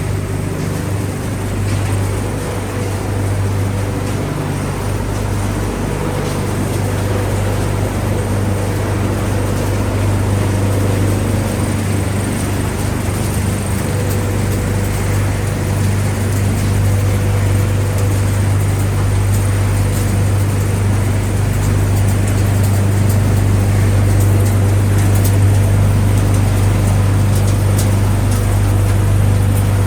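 Industrial recycling line for refrigerators and appliances running steadily, a loud constant low hum of motors with machine noise over it, growing slightly louder toward the end.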